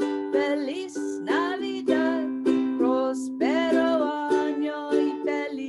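Ukulele strumming chords in a steady down-and-up rhythm, with a voice singing the melody along with it over parts of the strumming.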